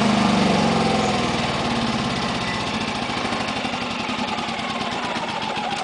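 Yamaha generator's small engine shutting down on a remote command and running down, with a slowly falling whine as it spins down.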